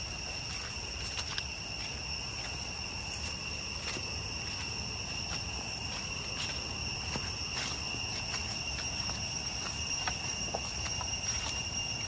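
Cicadas droning, one steady high-pitched tone that never lets up. Footsteps on dry leaf litter sound about once a second.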